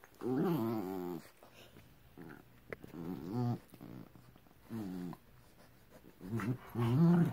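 Dogs growling in play, a terrier and a larger dog wrestling, in four or five short rumbling bouts with quiet gaps, the loudest near the end.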